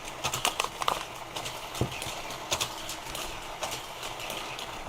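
A die-cast Hot Wheels toy car being handled: irregular light clicks and taps throughout.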